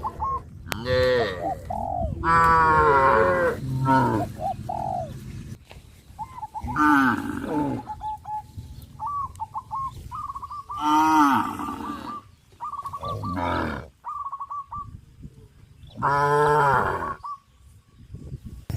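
Cattle mooing: several long, bending calls in a row, the loudest near the end. Short repeated chirping notes from a bird come between them.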